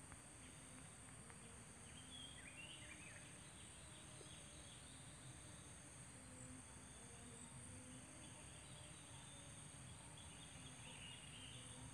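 Quiet outdoor ambience: a steady high insect drone, with faint bird chirps about two seconds in and again near the end.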